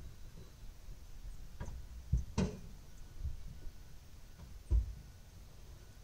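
A few scattered knocks over a low rumble. The sharpest comes about two and a half seconds in, and a heavy dull thump follows near five seconds.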